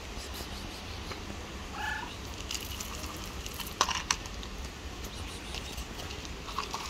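A domestic cat gives one short meow about two seconds in. Then come two sharp clicks close together, the loudest sounds, over a steady low rumble.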